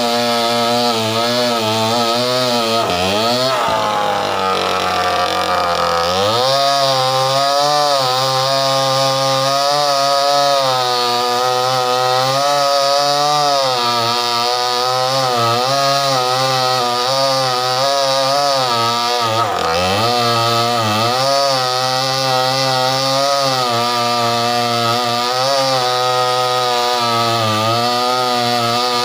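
Stihl 070 two-stroke chainsaw cutting through a mango trunk under load, its engine pitch wavering as the chain bites. About three seconds in the pitch sags deeply and recovers after a few seconds, and there is a shorter sag near the twenty-second mark.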